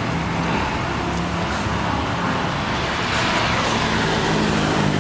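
Road traffic noise: vehicles passing with a steady rush of engines and tyres, swelling a little about three seconds in.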